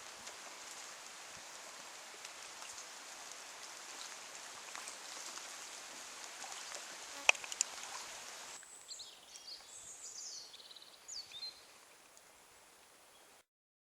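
Steady background hiss with a few faint ticks and one sharp click about seven seconds in. Then the sound changes abruptly to short gliding chirps, like a small bird calling, for a few seconds before the audio cuts off.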